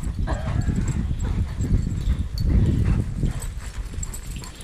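A dog panting hard and rhythmically, out of breath from chasing the ball.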